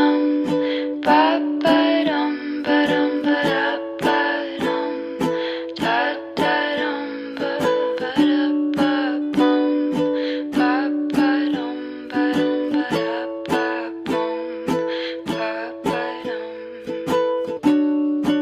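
Background music: an instrumental stretch of a pop song, with plucked strings strummed in a steady beat of about two strokes a second.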